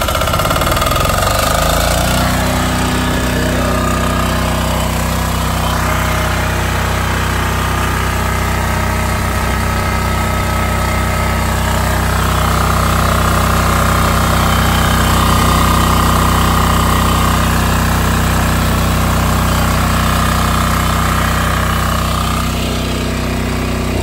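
Yanmar L100V single-cylinder air-cooled diesel driving a military 28-volt DC generator set, just after starting. It speeds up over the first two seconds to its governed speed, then runs steadily.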